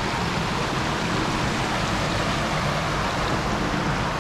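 Shallow river running over stones and gravel: a steady rush of water.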